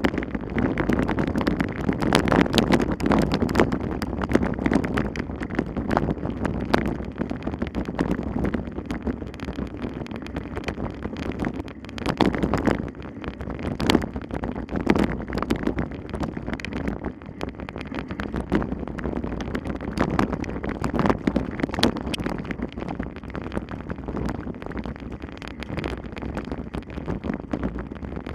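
Wind rushing over the microphone, rising and falling, with frequent sharp clicks and rattles throughout.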